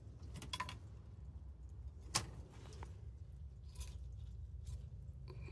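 Faint handling noise of a handheld phone being moved around, a low rumble with a few soft clicks.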